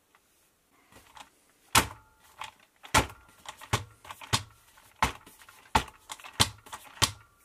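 Plastic Tamiya DT-01 RC buggy being pressed down and bounced on its suspension against a tabletop: a run of sharp plastic knocks and rattles, roughly one or two a second, starting about a second in.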